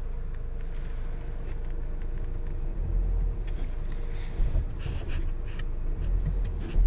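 Steady low rumble of a car driving, which grows heavier about three seconds in, with a few short knocks and rustles in the second half.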